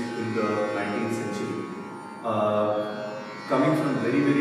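Male Carnatic vocalist singing a devotional composition in long held notes that bend and slide in pitch, in phrases with short breaths at about two and three and a half seconds in. A faint steady drone continues behind the voice.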